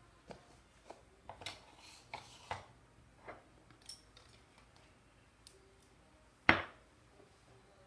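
Makeup items and small containers clicking and knocking on a tabletop as they are moved around in a search for a lost cap: a scatter of light knocks, with one louder knock about six and a half seconds in.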